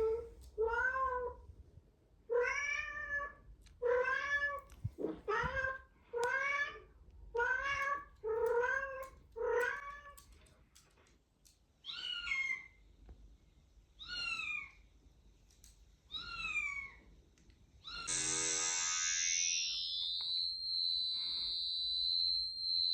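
A cat meowing about a dozen times in short calls, the last three higher-pitched. Near the end, a loud electronic tone starts, sweeping down in pitch and then holding a steady high note, like an alarm.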